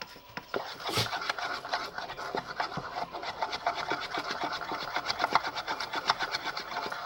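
Spoon beating a glue-and-colour slime mixture in a bowl: fast, continuous scraping and clicking strokes that start about half a second in.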